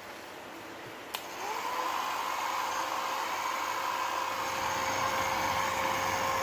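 Hair dryer switched on with a click about a second in, its motor spinning up with a brief rising whine and then running steadily with a rushing blow of air.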